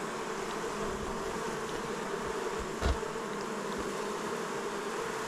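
Honeybees buzzing steadily in a dense, even hum around an open hive, with one light knock about three seconds in.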